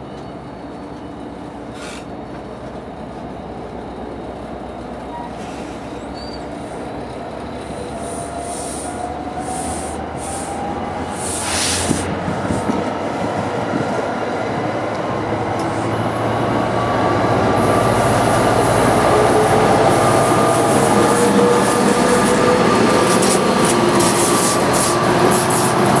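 Steel wheels of an NJ Transit commuter train squealing as the train rolls on a curved track. The train noise grows steadily louder, and from about halfway through the squeal comes in as several thin, slowly gliding tones.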